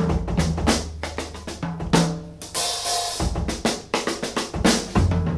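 Instrumental easy-listening orchestral music opening on a drum kit, with snare, bass drum and hi-hat strokes over a held bass line; a longer cymbal wash rings about two and a half seconds in.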